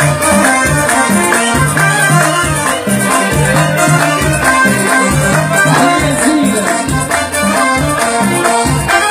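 Live band music played loud: a steady, repeating drum-and-bass beat with shaker-like percussion and a melody line over it.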